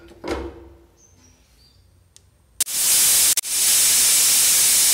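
Aluminium pressure cooker's whistle weight venting steam: a loud hiss begins about two and a half seconds in, breaks off once briefly and cuts off suddenly. This is the whistle that tells the cook the cooker is up to pressure, one of the three whistles the sambar rice is cooked for. A single knock comes just before, near the start.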